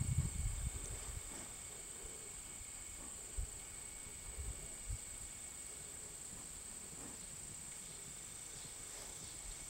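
Steady high-pitched drone of insects in a summer field, with a few low thumps on the microphone near the start and again around three to five seconds in.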